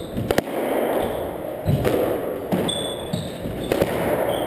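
Squash rally on a hardwood court: sharp cracks of the ball off racquet and walls, twice in quick succession about a third of a second in and again near the end, with a brief high shoe squeak on the floor in the middle and players' footsteps thudding, all echoing in the enclosed court.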